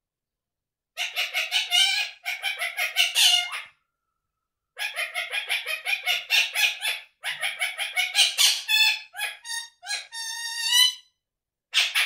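Indian ringneck parakeet calling in bouts of rapid, harsh, repeated notes, about six a second. Near the end comes a short run of higher whistled notes, and then the rapid calls start again.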